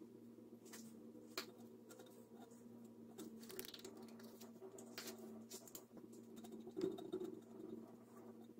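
Faint scattered taps and light scrapes as a wooden stir stick works thick epoxy in a plastic tub, over a steady low hum.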